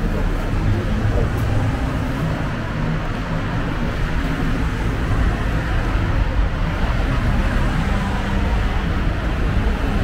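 Steady city street traffic noise: cars running along the road beside the pavement, a continuous low rumble with no sudden events.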